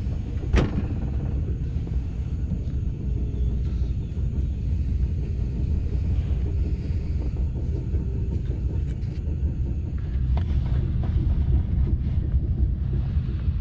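Steady low rumble of a TGV Duplex heard from inside the passenger car, with one sharp knock about half a second in and a few fainter clicks near the ten-second mark.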